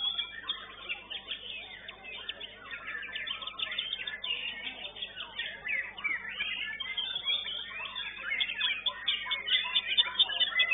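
White-rumped shama (murai batu) singing non-stop, a fast, varied run of whistles, chirps and quick trills. It grows louder in the second half.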